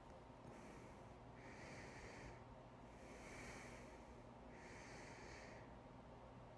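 A person breathing faintly and slowly, about four soft breaths in a row.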